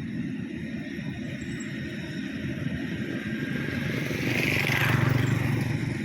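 Rice combine harvester's engine running with a steady low rumble, swelling louder with a brief rushing noise about four to five seconds in.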